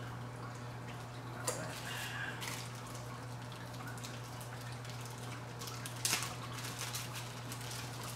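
Foam clone collars being handled and sorted by hand, with light rustling and two short sharp clicks, one about a second and a half in and a louder one about six seconds in, over a steady low hum.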